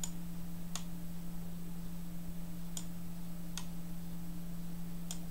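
Steady electric hum from a small electric motor fed through an inverter and rectifier, turning a generator on its shaft, with five sharp ticks at uneven spacing.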